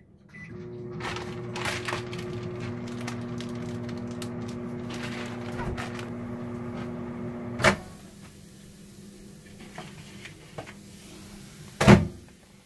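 Microwave oven running with a steady hum, cut off by a sharp clunk as its door is opened about eight seconds in. Near the end a plate is set down on the wooden table with a thud.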